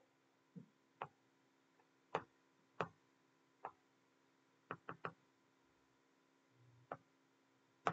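About ten short, sharp taps of a stylus on a tablet screen, irregularly spaced, with three in quick succession about five seconds in, over a faint steady hum.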